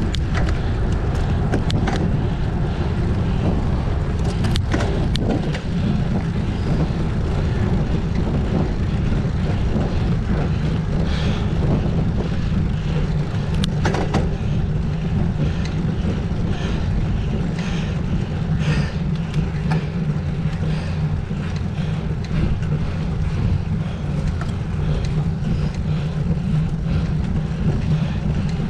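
Steady low rumble of wind and road noise on a bike-mounted camera's microphone as a road bicycle climbs slowly, with scattered sharp clicks.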